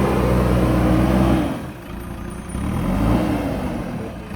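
Heavy diesel engine of a construction machine running steadily and loud. About a third of the way in its note drops away abruptly. Near the middle it briefly rises and falls again, like a short rev.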